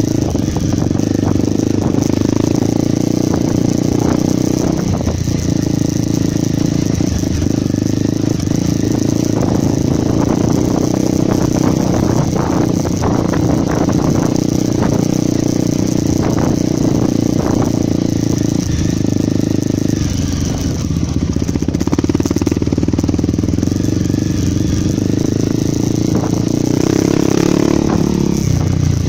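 Honda CRF 250 Rally's 250 cc single-cylinder engine running under load on a rough dirt climb, heard from a phone mounted on the handlebars; the engine note dips and picks up again with the throttle a few times. Short knocks and rattles from the bike going over stony ground run through the middle of the ride.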